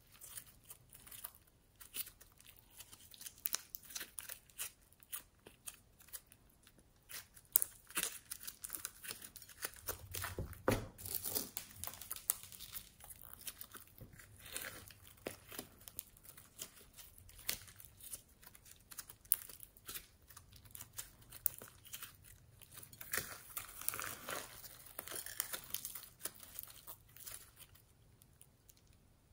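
Hands squishing, pulling and stretching fluffy slime mixed with foam beads: an irregular run of soft crackles, small pops and tearing sounds as the slime is squeezed and pulled apart.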